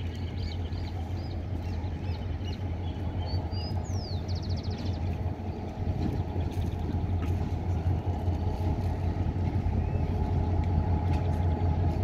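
Diesel locomotive approaching with a steady low engine rumble that grows gradually louder as it nears. Birds chirp over it during the first few seconds.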